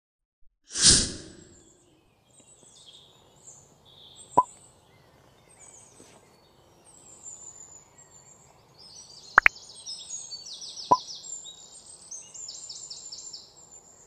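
A swoosh effect about a second in. After it, faint birdsong chirps and trills carry on in the background, growing busier in the second half. Sharp clicks come from small electronic parts being handled: one, then a quick double click, then another.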